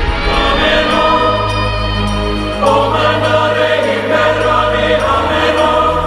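Music with choir-like singing held over sustained low notes.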